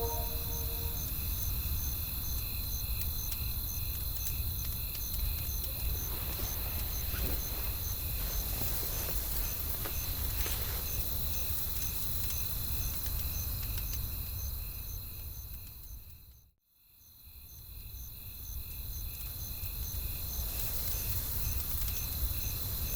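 Night-forest ambience: a steady high chirping that pulses about twice a second over a low rumble, with a few faint crackles. The whole bed fades out briefly about 16 s in and fades back up.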